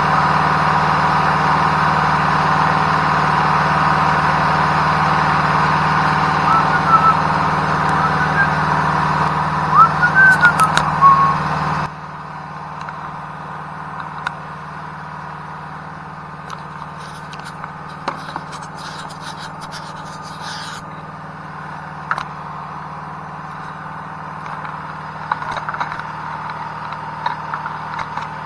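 Portable gasoline generator engine running steadily, freshly cold-started on choke. About twelve seconds in it suddenly becomes much quieter, and scattered clicks and a short spell of crackling follow.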